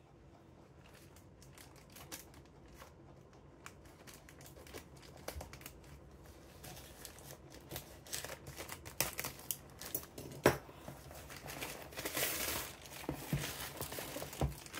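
Plastic poly mailer bag being handled and cut open with scissors: crinkling and rustling plastic with scattered snips and clicks, growing busier and louder in the second half.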